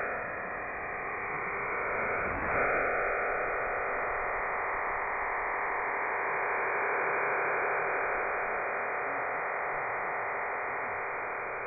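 Shortwave AM reception of the 9330 kHz signal through a web SDR receiver: a steady hiss that fills the receiver's audio band, with no voice.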